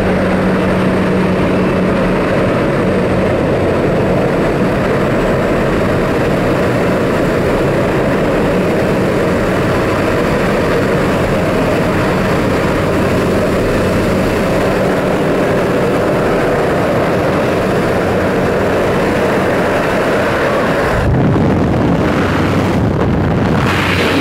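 Propeller aircraft engine and the rush of air through an open jump door, a loud steady drone with a low hum. About 21 seconds in it changes abruptly to buffeting wind noise on the microphone as the jumper leaves the aircraft into freefall.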